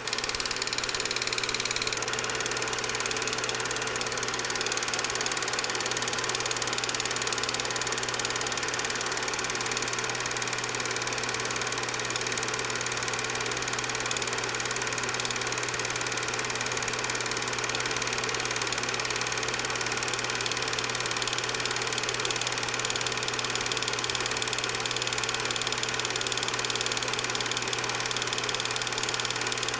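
8mm movie projector running steadily: a constant mechanical hum and whir with no change in speed.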